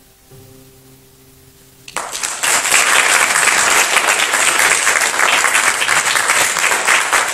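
The last low notes of a classical guitar ring on and fade; about two seconds in, an audience starts applauding, loud and steady.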